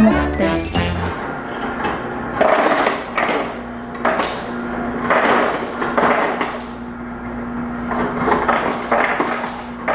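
Ice cubes rumbling and clattering in a series of short bursts, about one a second, over a steady low hum.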